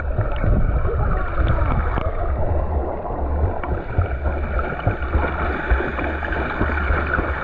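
Sea water rushing and gurgling as heard underwater, with a steady low rumble, while a swimmer strokes and kicks past.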